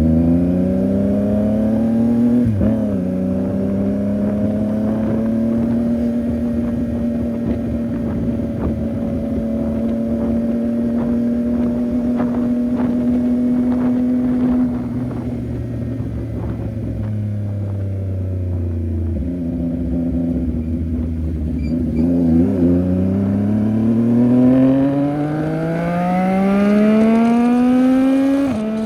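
CFMOTO 675NK's inline three-cylinder engine on the move: it revs up through a gear and upshifts about two and a half seconds in, then holds a steady cruise. Around halfway the revs drop back, and near the end it accelerates again with rising pitch and two more upshifts.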